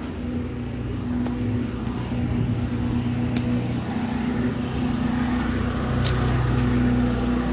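Car engine idling with a steady low hum that slowly grows louder, with a few faint clicks.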